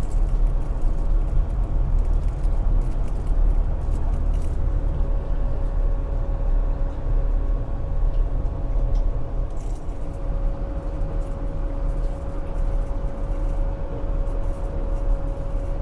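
Rooftop HVAC equipment running: a steady low rumble with a constant mechanical hum, one higher hum tone dropping out about two-thirds of the way through.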